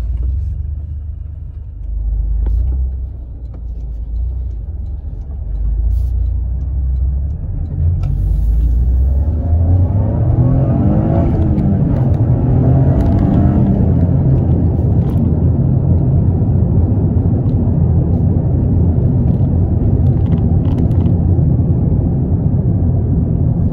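Cabin sound of a Toyota GR Corolla's 1.6-litre turbocharged three-cylinder engine and its tyres on the road while driving. A low rumble swells about eight to ten seconds in as the revs rise under acceleration, then settles into a steady loud drone.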